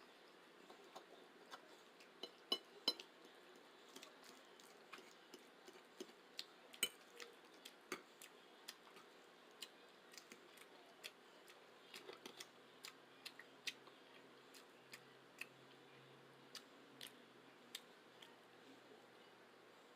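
Close-miked eating sounds of spaghetti being chewed: soft, irregular wet mouth clicks and smacks, with a few sharper clicks around three seconds in and again near seven and eight seconds.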